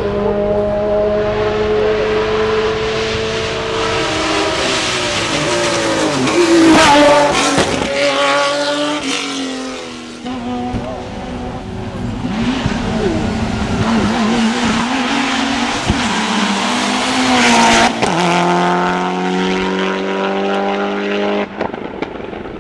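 Hill-climb race car engines running at high revs, their pitch stepping up and down with gear changes as the cars go by. They are loudest about seven seconds in and again near eighteen seconds, and the sound cuts off sharply near the end.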